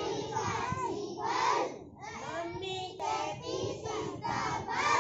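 A group of young children chanting a Hindi poem together in a sing-song, with short pauses between lines about two and three seconds in.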